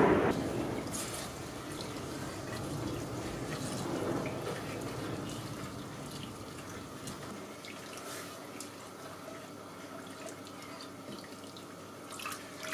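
Liquid sloshing as a wooden spoon stirs citrus peels and peppercorns in a stainless-steel saucepan. A pour into the pan tails off in the first second or two.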